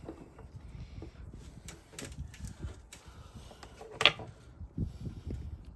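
Scattered small clicks and taps of hand work on a cotter pin as it is spread open to lock it in place, with one sharper click about four seconds in.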